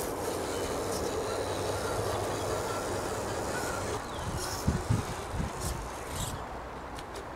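Radio-controlled rock crawler's 35-turn brushed electric motor and gears whining steadily as it crawls, then several knocks about two-thirds of the way in as its tyres and chassis bump over wooden blocks, with a few lighter clicks near the end.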